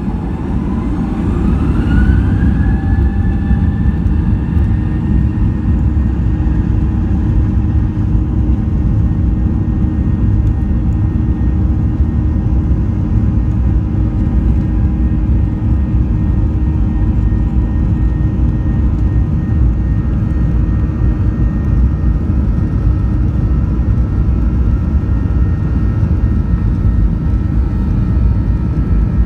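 Airbus A321 jet engines heard inside the cabin: a whine rises over the first couple of seconds as the engines spool up, then holds steady over a loud, constant rumble.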